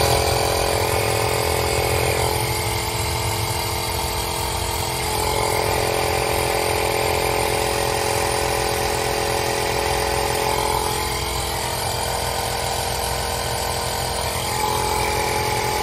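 Portable electric tyre inflator running steadily, its small compressor pumping air into a car tyre that had gone flat.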